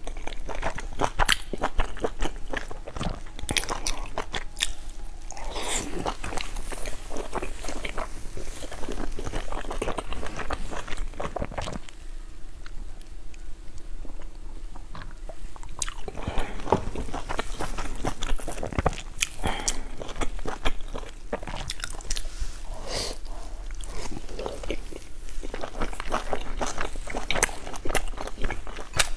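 Close-up eating sounds: bites and wet chewing of a stuffed bun dipped in chili oil, with some crunchy bites. The chewing pauses for a few seconds about halfway through, then resumes.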